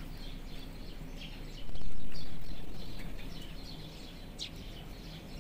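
A flock of thrushes calling with short, scattered high chirps over steady background noise. About a second and a half in, the background swells sharply and then fades away over a couple of seconds.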